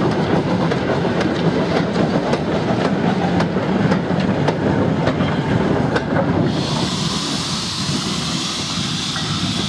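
Train of hopper wagons hauled by a Peckett 0-4-0 industrial steam locomotive rolling past, wheels rumbling and clicking over the rail joints. About two-thirds of the way through a steady hiss of steam comes in over the rumble.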